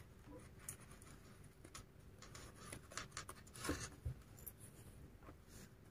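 Faint rustling and scratching of twisted macramé cord as hands work the end loose from a wound ball and pull a strand out, with a few soft scrapes and taps between about two and four and a half seconds in.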